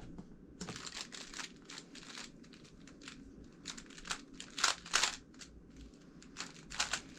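Rapid clicking and clacking of a GAN356 X magnetic plastic speed cube as its layers are turned quickly during a solve, in irregular bursts of turns with short pauses between them.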